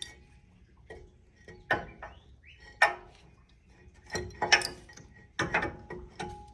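Sharp metallic clicks and clinks, about seven of them spread irregularly and bunched in the second half, several with a short ring: metal brake caliper parts and tools being handled while the caliper goes back on over new rear brake pads.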